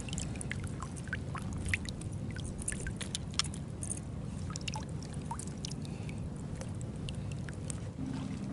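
Small water sounds at the lake's edge: light drips, splashes and sloshing with scattered small clicks over a low steady rumble. Near the end the background changes to a low hum.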